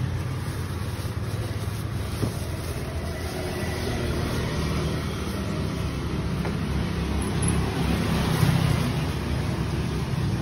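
Steady low drone of a motor engine running, with general street traffic noise.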